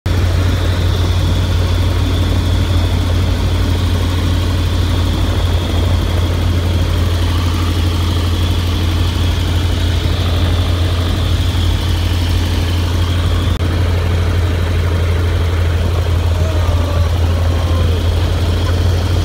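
1929 biplane's radial engine and propeller running steadily in flight, heard from the open cockpit over the rush of wind: a loud, even, deep drone with a steady high whine above it.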